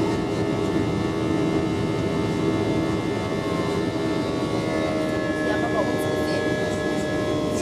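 Airbus A319 jet engines and airflow heard from inside the passenger cabin during the climb after takeoff: a steady noise with several steady tones running through it.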